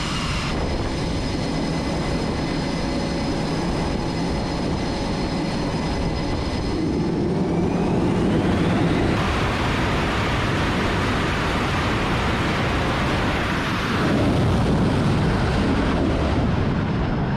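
F/A-18 Super Hornet's twin jet engines running on a carrier catapult, the whine climbing about eight seconds in as they spool up to full power, then a louder blast of jet noise around fourteen seconds in as the jet launches.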